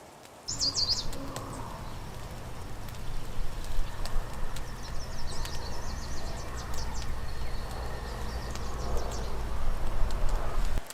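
Small birds chirping in quick high trills, once near the start and again in the middle, over a steady low rumble. The whole sound cuts in abruptly and stops abruptly.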